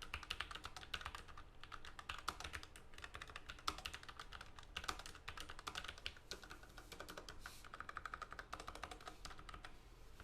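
Fast typing on a Logitech MX Mechanical Mini with tactile quiet (brown) low-profile mechanical switches: a quick, uneven run of key clicks that stops near the end.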